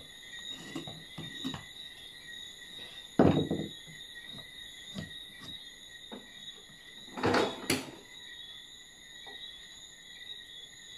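Wooden knocks as a wooden vanity carcass and boards are handled and set down: one loud knock about three seconds in and a pair near eight seconds, with lighter taps between. Crickets trill steadily in the background.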